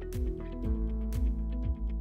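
Background music with a steady beat: a deep kick drum about twice a second and a bright crash-like hit about once a second over a bass line.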